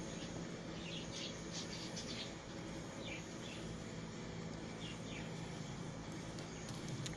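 Faint, short high chirps, a few at a time, over a steady low hum.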